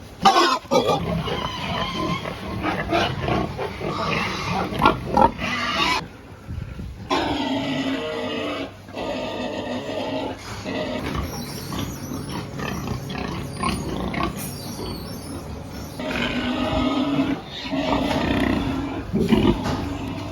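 Pigs squealing and grunting, in several loud, irregular stretches, with a break at about six seconds.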